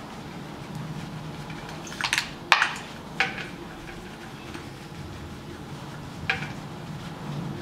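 A metal hand tool clinking against the aluminium cylinder head of a Toyota 2ZR-FAE engine as it is worked down a spark plug well: a cluster of sharp metallic clicks two to three seconds in and one more a few seconds later, over a low steady hum.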